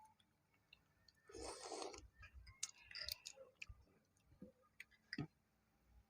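Faint eating sounds of balut (boiled duck eggs): scattered small clicks and taps, with a short rustling burst about a second and a half in.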